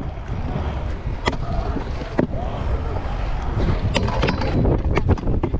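Stunt scooter rolling across a concrete skatepark, heard from a handlebar-mounted camera: a steady low rumble of the wheels on concrete, with several sharp clacks spread through.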